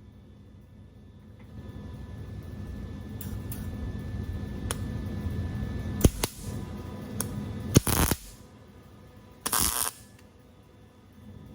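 Metal shop work on a vehicle frame: a low steady hum, several sharp clicks and metal knocks, the loudest about six and eight seconds in, and a half-second burst of noise near the end.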